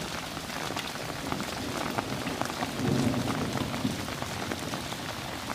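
Light rain falling, many separate drops ticking on surfaces over a steady wash of water.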